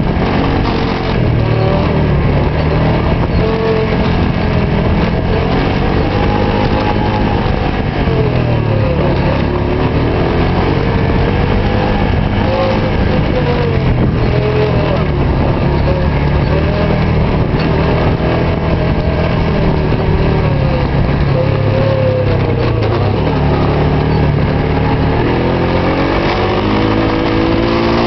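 Quad bike engine heard from on board while riding a dirt track, its revs rising and falling every few seconds as the throttle is worked.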